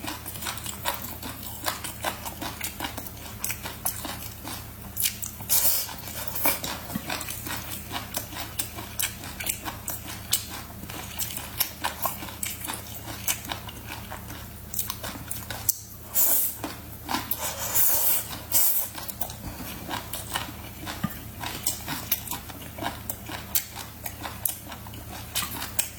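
Close-up crunchy chewing and biting, a dense run of crisp crackling crunches. Louder clusters of crunching come about five seconds in and again between about sixteen and nineteen seconds, over a faint steady low hum.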